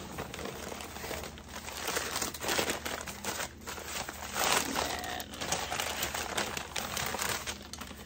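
Crinkling and rustling of a shopping bag as hands rummage in it for the next item, a ceramic candle holder, in irregular flurries that are loudest about two and a half and four and a half seconds in.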